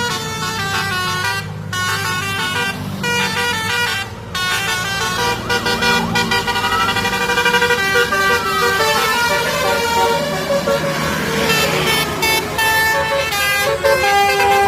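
Bus telolet horns of the Basuri type playing their multi-note tunes in quick stepping notes, with a couple of gliding tones about halfway through, over the low running of the bus engines.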